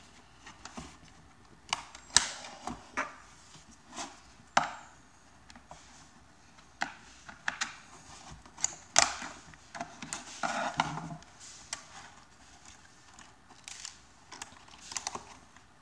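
Plastic case of a solar power bank being pried open with a flathead screwdriver: irregular sharp clicks and snaps as the case's plastic clips let go along the seam.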